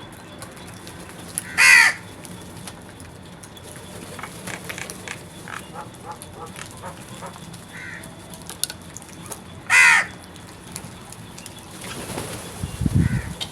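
Crow cawing, two single loud caws about eight seconds apart, with fainter chirps from other birds between them and a low sound near the end.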